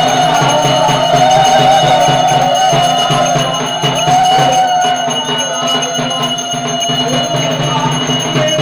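Devotional puja music: bells ringing and a steady drum beat under a wavering melody.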